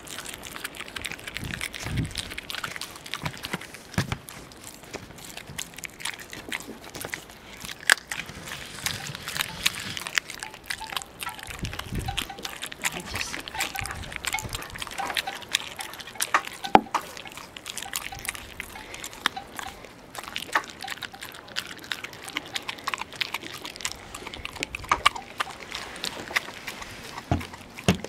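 Landseer Newfoundland puppy chewing a raw chicken leg: wet smacking and slurping, broken by irregular sharp clicks and cracks of its teeth on the bone.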